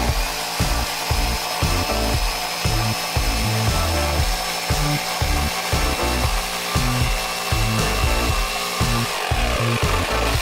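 Electric saw cutting wood, its motor whining steadily until the whine drops away about nine seconds in. Background music underneath.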